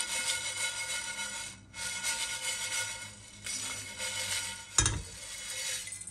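Background music, broken by short gaps, with a single sharp knock about five seconds in.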